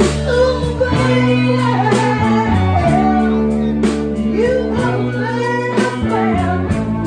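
Live band playing an upbeat song: fiddle, electric bass, electric guitar and drum kit, with a steady bass line under regular drum hits and a wavering fiddle melody.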